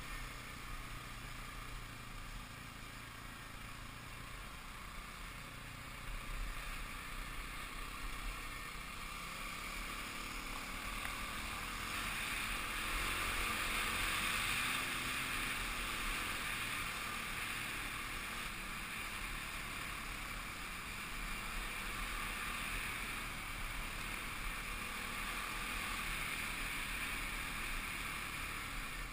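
Kawasaki KLX 250 dirt bike's single-cylinder four-stroke engine running steadily under way, mixed with rushing wind and road noise. It grows a little louder about halfway through, then eases back.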